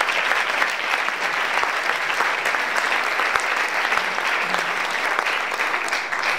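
Luncheon audience applauding, a dense steady round of hand clapping that stops abruptly just after the end.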